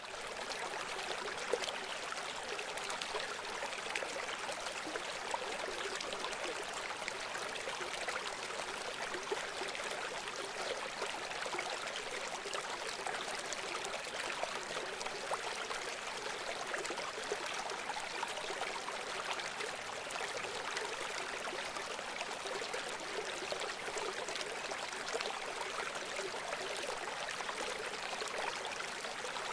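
River water flowing steadily, a continuous rushing babble over its course.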